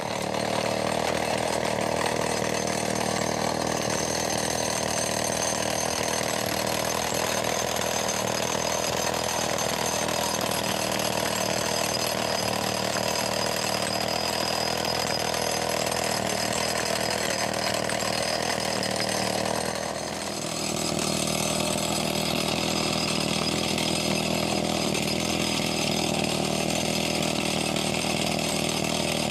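A small engine running steadily, with its tone shifting slightly about two-thirds of the way through.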